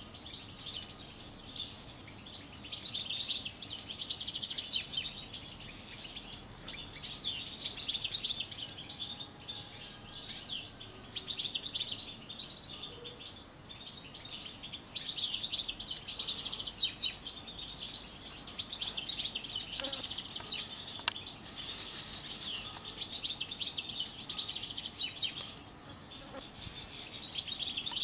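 European goldfinch singing: bouts of rapid, high twittering song broken by short pauses of a second or two.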